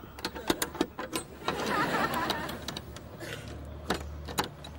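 A padlock and sliding metal bolt on a car door being unlocked and worked: a run of sharp metallic clicks and rattles, with a short stretch of denser noise about a second and a half in and a louder click about four seconds in.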